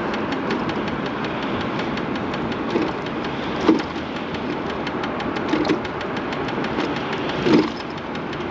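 MiniPro Mi716 electric scooter rolling along with a steady running noise and a fast, even ticking, plus three louder knocks about two seconds apart: the knocking from the front wheel.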